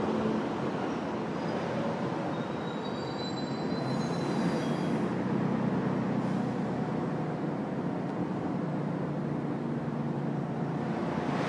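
São Paulo Metro Line 1 train running alongside the platform: a steady rumble of steel wheels on rail. A few seconds in, the wheels briefly give a faint high squeal.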